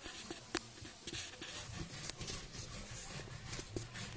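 Possum chewing sunflower seeds: irregular small cracks and clicks of the seed shells breaking between its teeth.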